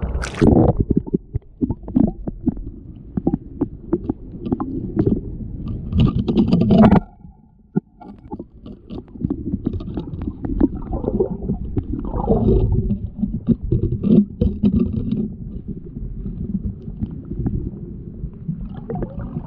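Muffled underwater sound of tide-pool water churning, with many small knocks and scrapes, heard through a camera held beneath the surface. There is a short lull about seven seconds in.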